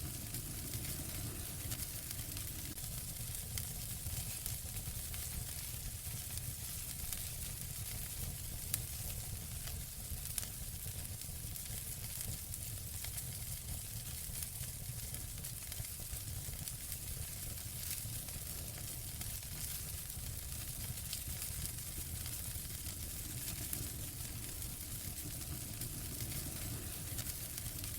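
Wood fire burning in a fireplace: a steady hiss with frequent small crackles and pops, and a couple of sharper pops about nine and ten seconds in.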